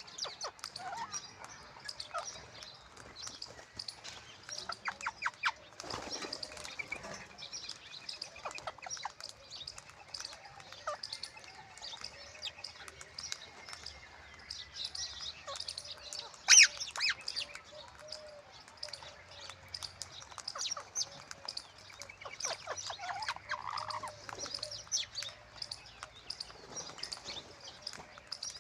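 Parrot calling: a run of short high chirps and squawks, with one loud shriek about sixteen seconds in.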